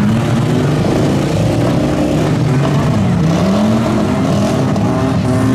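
Demolition derby cars' engines running loudly and revving, several engines overlapping, their pitch dipping about three seconds in and climbing again.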